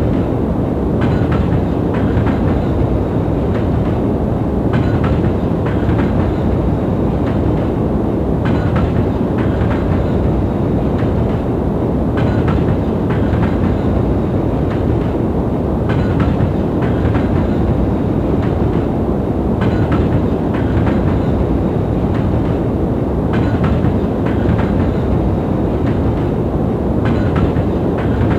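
Steady low rumbling noise played as a soothing sleep sound, with faint clicks, often in pairs, every few seconds, like a train carriage running over rail joints.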